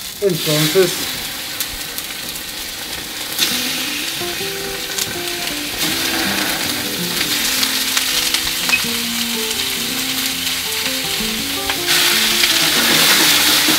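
Chicken pieces sizzling in hot olive oil in a frying pan as they are seared over high heat. The sizzle grows louder about three and a half seconds in, and again near the end, as more pieces go into the pan.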